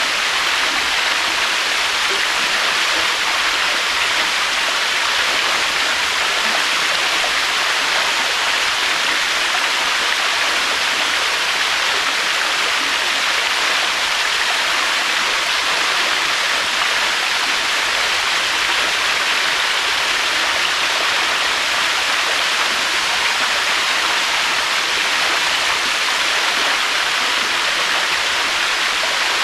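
Waterfall: water falling and rushing in a steady, unbroken hiss, fairly loud, with no surges or pauses.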